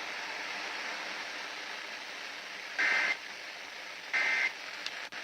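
Steady radio hiss, broken by two short bursts of Emergency Alert System digital data warble about a second apart, each a rapid two-tone chirping. Their brevity is typical of the end-of-message bursts that close an alert.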